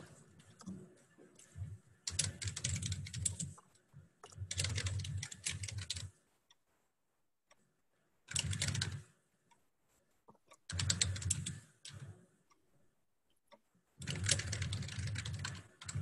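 Computer keyboard being typed on in about five bursts of rapid keystrokes, separated by short pauses.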